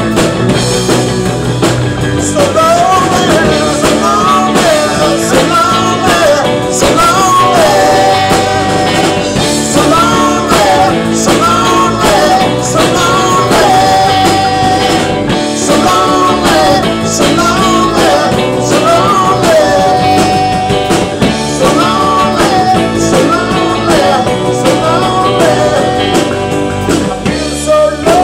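Live rock band playing: electric guitar, bass guitar and drum kit, with a man singing lead in phrases from about two seconds in.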